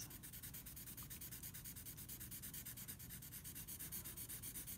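Felt-tip marker scribbling on paper, coloring in an area with rapid, even back-and-forth strokes.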